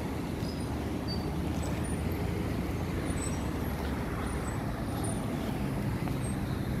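Steady outdoor street ambience: a continuous low rumble of road traffic, with no distinct single event.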